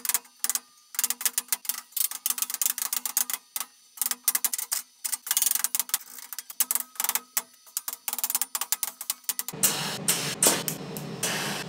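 Thin laser-cut stainless-steel sheet crosspieces clinking and rattling against one another as they are slotted into the grid of a welding table: many quick metallic clicks with a ringing note. About nine and a half seconds in, a TIG welding arc strikes and hisses steadily.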